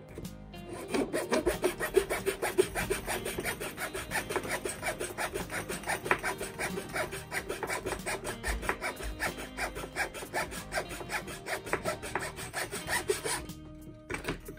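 Small Zona razor saw cutting through a thin square wood strip in an aluminum thin-slot miter box: fast, even back-and-forth strokes that stop about a second before the end as the cut finishes.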